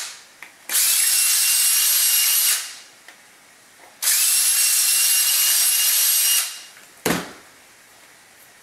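Cordless drill running in two bursts of about two seconds each at a steady whining pitch, enlarging a bolt hole in a piece of acrylic sheet. A single sharp knock follows a few seconds later.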